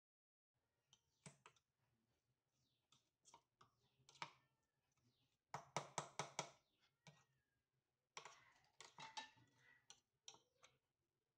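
Metal spoon scraping and clinking against the inside of a stainless steel mixer-grinder jar, loosening thick ground spice paste between grinds. Faint, scattered clicks, with a quick run of them about six seconds in.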